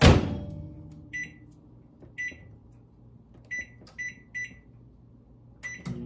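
Microwave oven door shut with a thud, then the control panel beeping at each button press, about six short beeps at uneven intervals, as a 7-minute cook time is keyed in.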